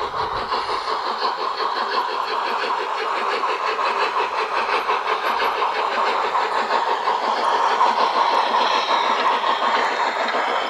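Garden-railway model steam locomotives running along the track, a steady mechanical running sound with a fast, even rhythm.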